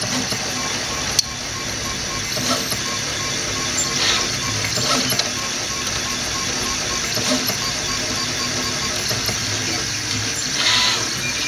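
Delta (Rostock) 3D printer printing: the stepper motors whir and buzz as the print head moves, over the steady hum of the head's cooling fan. The motor noise swells louder a few times, and there is one sharp click about a second in.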